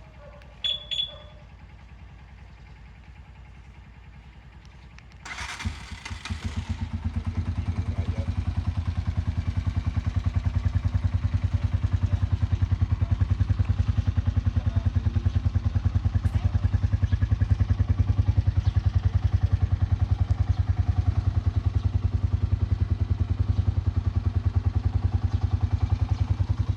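Two short high beeps from the motorcycle alarm about a second in. About five seconds in there is a brief burst of noise, then a Honda TMX 125's single-cylinder four-stroke engine starts and idles steadily with an even low pulse.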